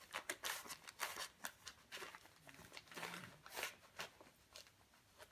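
Wrapping paper crinkling and rustling in quick irregular crackles as a small dog noses and tugs at it; the crackles come thick at first and thin out after a couple of seconds.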